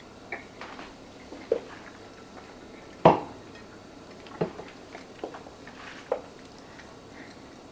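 A plate set down on a kitchen counter with a sharp clatter about three seconds in, among a few lighter clicks and knocks, while a chicken wing is being eaten.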